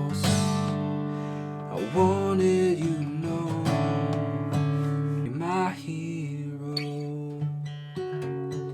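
Acoustic guitar strummed and picked, playing the instrumental close of a song.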